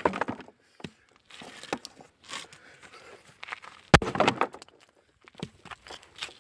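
A single hard sledgehammer blow about four seconds in, on a small condenser that the hammer fails to break. Lighter knocks and shuffling come before and after it.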